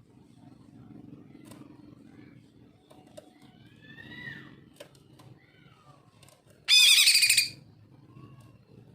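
Male green leafbird (cucak ijo) singing: a few soft sliding whistles, then a loud, harsh chattering burst lasting under a second near the end.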